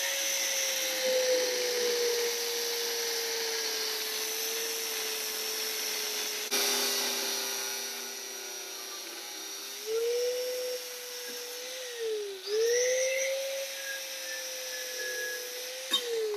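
Angle grinder with a thin cut-off wheel slicing through a steel brake pedal arm: a steady motor whine with the hiss of the disc biting the metal. The whine dips in pitch a couple of times as the wheel is pressed into the cut.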